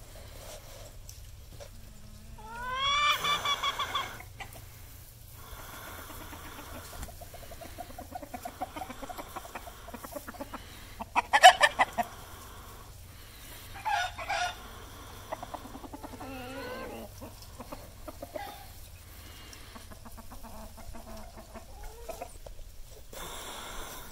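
Chickens clucking in a yard, with a rooster crowing about three seconds in and several more short calls after it, the loudest about halfway through.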